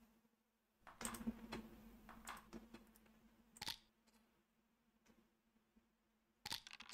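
Faint, scattered clicks of a computer mouse and keyboard: a few about a second in, one near the middle and a quick cluster near the end, over a low steady hum.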